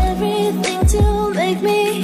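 Background music: an electronic pop track with a steady kick-drum beat under a sustained melody that bends in pitch.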